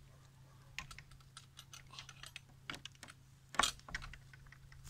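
Irregular light clicks and rattles of a dog collar being handled and fastened around a dog's neck, with one louder click about three and a half seconds in.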